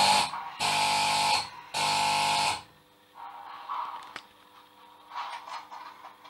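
Alarm buzzer of a missile launch-control console sounding in repeated blasts about a second long with short gaps, signalling a launch sequence. It stops about two and a half seconds in, leaving only faint room sounds and a single click.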